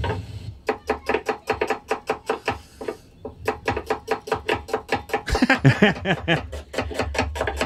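Background music with a quick, even plucked-string rhythm. A brief laugh breaks in about five and a half seconds in.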